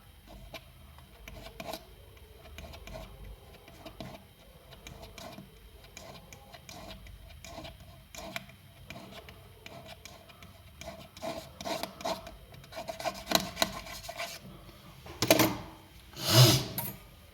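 Small hand tools scraping and rubbing on a hard surface in repeated short strokes, with light clicks. The strokes get louder in the last few seconds, with two loud scrapes near the end.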